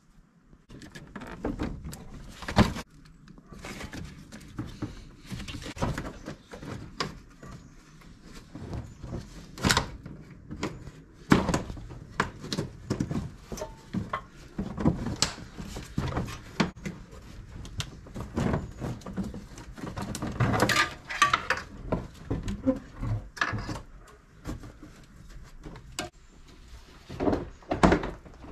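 Irregular plastic knocks, clicks and rustles as a second-generation Ford Fusion's plastic front bumper cover is handled, its wiring connectors reconnected and the cover pushed back onto the car. A few knocks are sharper than the rest.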